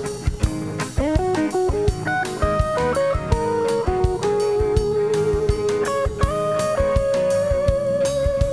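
Live rock band playing an instrumental passage: an electric guitar lead melody with bends and slides over bass guitar and a steady drum-kit beat.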